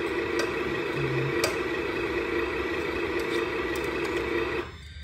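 Simulated diesel engine idle from the sound unit of an RC Volvo FH16 truck, running steadily, then cutting off suddenly near the end. A couple of light plastic clicks come from the truck's parts being handled.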